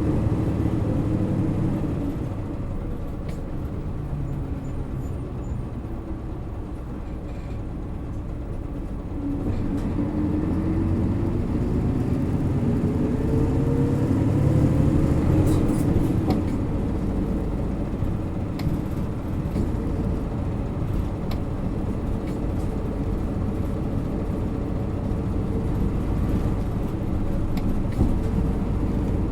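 Isuzu Erga Mio bus (PA-LR234J1) diesel engine running under way. After a quieter stretch the engine pulls harder with a rising pitch for about six seconds. Roughly halfway through, the pitch drops at a gear change and the engine settles into steady running.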